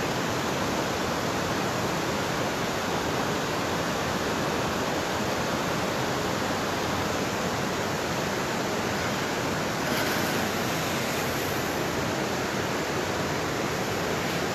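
Water rushing over a low waterfall and down rocky creek rapids, a steady, even rush of noise.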